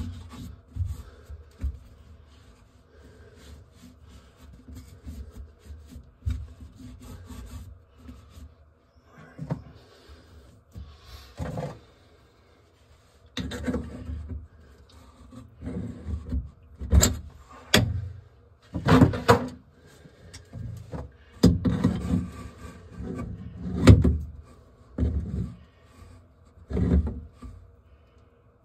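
Hand work on a sink drain: a towel rubbing on the chrome drain pipe and hands and tools knocking about the cabinet. Then metal tools work the brass drain locknut under the basin, making a series of loud scrapes and knocks about a second apart through the second half.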